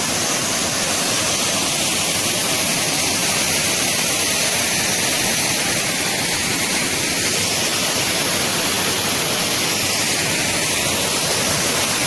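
Waterfall, with water falling and splashing in a steady, even rush of noise that does not change.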